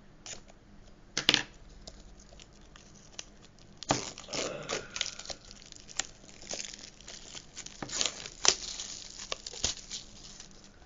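Plastic shrink wrap on a Blu-ray case being cut open and torn off by hand. A single sharp click about a second in, then several seconds of irregular tearing and crinkling of the plastic.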